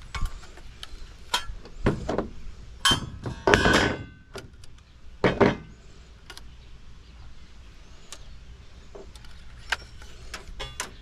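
Irregular knocks and clanks of computer tower parts being handled and pulled apart, loudest about three and a half seconds in, then thinning to a few light taps and clicks.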